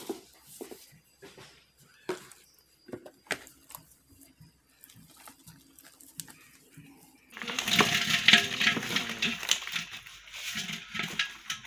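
Live, freshly caught fish flapping and slapping wetly against a plastic tub: scattered single knocks at first, then from about seven seconds in a dense, loud patter of many fish thrashing at once.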